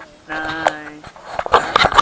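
A goat bleats once, a single held call of under a second. Near the end come several loud knocks and rubbing noises from the phone being handled right at the microphone.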